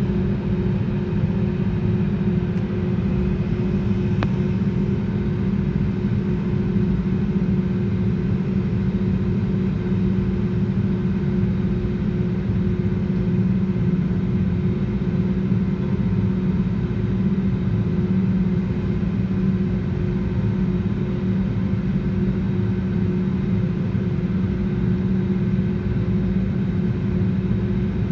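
Airbus A320neo's jet engines running steadily at low power, heard from inside the cabin: an even low drone with a steady hum, no rise in pitch.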